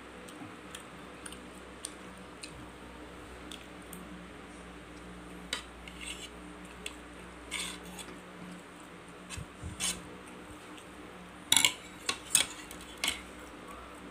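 Metal knife and fork clinking and scraping on a plate while cutting fried beef meatballs, in scattered light taps. The loudest clinks come near the end as the knife and fork are laid down on the plate.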